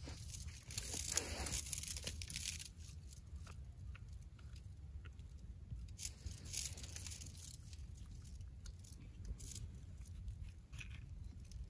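Rustling and crackling handling noise as a steel trap and wire stake are worked into place on a half-sunken log among dry twigs. It comes in louder bursts about a second in and about six seconds in, with small clicks between them and a steady low rumble underneath.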